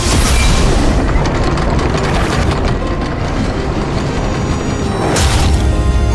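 Deep booming, rumbling blast sound effect from a martial energy technique, surging at the start and again about five seconds in, over background music.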